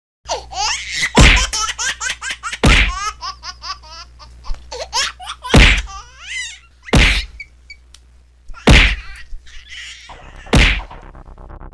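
Six loud whacks of blows landing in a staged beating, coming every one and a half to two seconds, with laughing voices between the blows.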